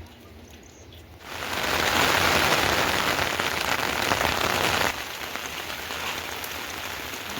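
Heavy rain falling as a dense, steady hiss that starts suddenly about a second in, then drops abruptly to quieter steady rain about five seconds in.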